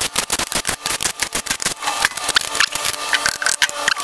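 Irregular clicking, rattling and scraping of metal parts and bolts as the rocker box is taken apart on a Harley-Davidson Twin Cam 103 engine.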